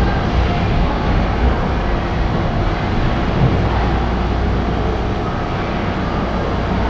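Steady low rumble and hiss of ice-arena background noise, with a few faint steady tones running through it.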